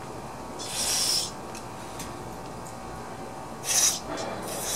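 Aerosol carburetor cleaner hissing out through its thin extension straw in short bursts: one about a second in, another near the end, and a third just starting as it ends. The spray is cleaning out the parts of a small-engine carburetor.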